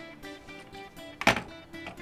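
Background music with plucked, guitar-like notes, and one sharp knock about a second in that is louder than the music.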